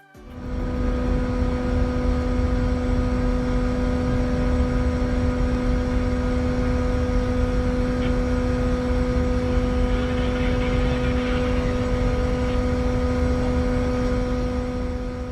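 A ship's engine running at a steady pace: a constant droning hum over a heavy low rumble. It fades in at the start and out near the end.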